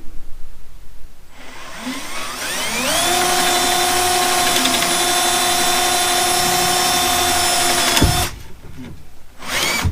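Power drill spinning up with a rising whine, then running steadily for about five seconds as it bores an anchor-bolt hole through a wooden beam, and stopping suddenly with a knock.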